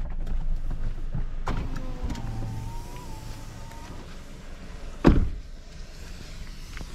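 A car's electric window motor runs with a whine for about two seconds, then the car door is slammed shut with one loud thud about five seconds in.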